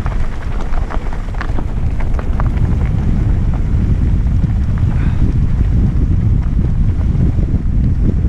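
Wind buffeting a GoPro's microphone as a mountain bike rolls fast down a dirt trail, a steady low rumble of wind and tyres. Scattered clicks and rattles from the bike and loose stones over bumps come in the first few seconds.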